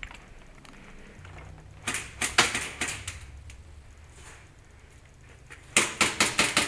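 Airsoft electric rifles firing in quick bursts of sharp clacking shots: a short volley about two seconds in, then a faster string of shots near the end.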